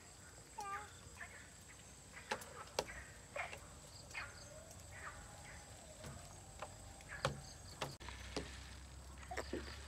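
Faint scattered knocks and clicks, a few at a time, with short chirping animal calls and a steady high whine behind them.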